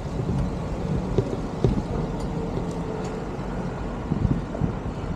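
Wind and road noise on a moving bicycle's camera microphone: a steady low rumble with a few light knocks from bumps in the road.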